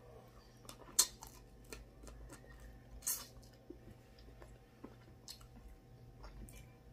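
Close-up eating of snow crab legs: sharp, scattered cracks and snaps of crab shell, the loudest about a second in and another around three seconds, among softer chewing and the squish of meat pulled from the shell.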